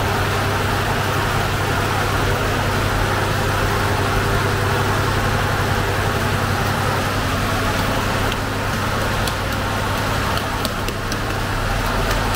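Steady low machine hum with an even rushing noise from the bakery's oven and its equipment. A few light taps and slaps come later on as dough is handled on the wooden peel.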